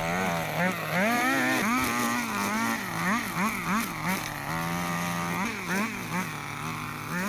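Gas string trimmer engine running while cutting tall grass, its pitch rising and falling again and again as the throttle is worked, with a brief steady stretch about midway.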